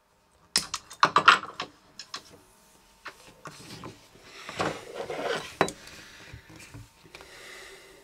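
Pliers snipping the excess copper wire off the end of a coax cable, a quick run of sharp clicks about half a second in. Then rustling and scraping as plastic heat-shrink tubing is handled on the bench, with a few single clicks.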